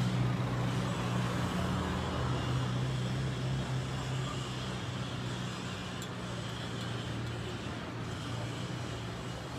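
City street traffic noise with a steady low hum of idling car engines, slowly getting quieter.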